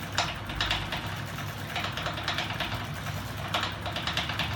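Home-built magnet 'ornithopter engine' rig, driven by electric motors through a connected bike freewheel ratchet, running: fast, even clicking over a low hum, with louder clattering bursts about every half second.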